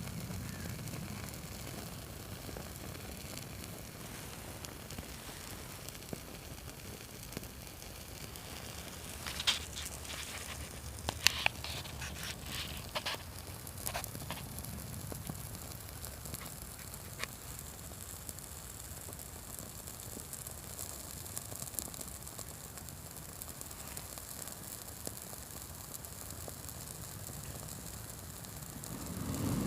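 Prawn crackers burning as a fire starter, crackling over a steady low hiss, with a cluster of sharp pops and crackles about ten to fourteen seconds in and a few scattered ones later.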